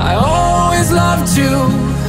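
Music playing: a song whose melody slides up near the start into held notes, over a steady bass.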